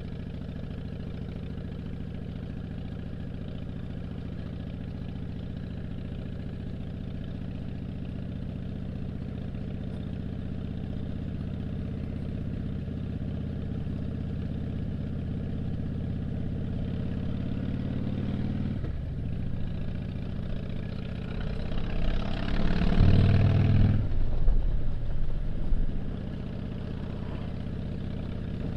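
2007 Harley-Davidson Dyna Street Bob's Twin Cam 96 V-twin running as the bike rides along: a steady engine note that slowly builds, dips for a moment about two-thirds of the way through, then gets louder for a few seconds before settling again.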